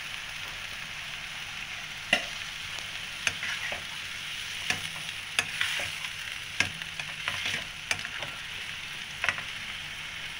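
Broccoli and cauliflower sizzling in a non-stick wok while being stir-fried with a plastic spatula, which knocks and scrapes against the pan at irregular intervals over the steady hiss.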